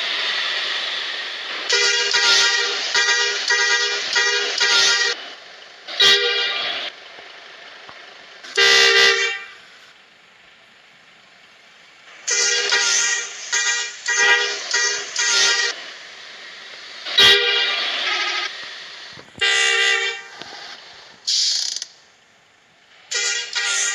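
Multi-tone 'telolet' horn of a Sugeng Rahayu bus, several notes at once, sounded in quick runs of short blasts about half a second apart, broken by pauses and a few single longer blasts.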